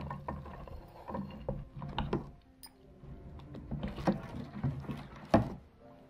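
Chopped onions tipped from a steel bowl into dosa batter and stirred in with a spoon: wet slopping and scraping in the pot, with a few sharp knocks of metal against it.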